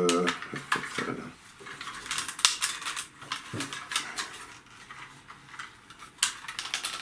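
Hard plastic parts of a Transformers G1 Powermaster Optimus Prime toy clicking and clattering as it is handled and its pieces are shifted and pushed into place, with irregular sharp clicks, the loudest about two and a half and six seconds in.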